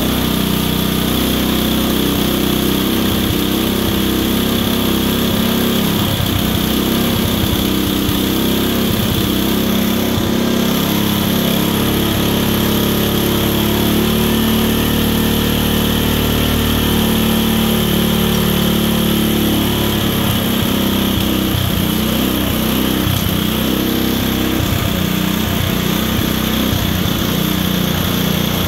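Small engine of the Thunderstorm generator rig running steadily, driving a generator under load.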